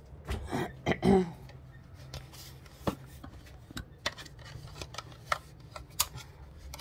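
Scattered light clicks and knocks of handling and movement as a phone camera is carried about, over a steady low hum.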